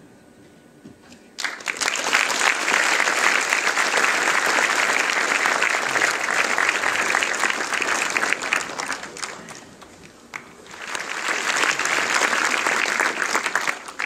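A large audience applauding. The clapping starts about a second and a half in, dies down around ten seconds, then swells again in a second round near the end.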